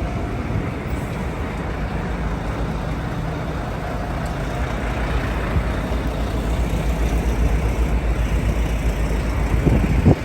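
City street traffic noise, with a low rumble that grows louder over the last few seconds.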